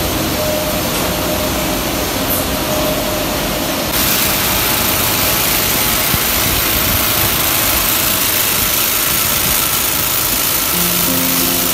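Steady, loud din of nut-making factory machinery running. It steps up and turns brighter about four seconds in.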